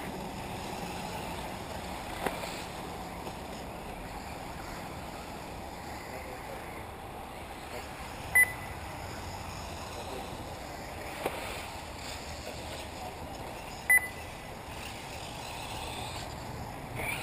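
Short high electronic beeps, three of them about five and a half seconds apart, typical of a race lap-counting system registering cars crossing the timing line, over steady outdoor background noise at an RC buggy track.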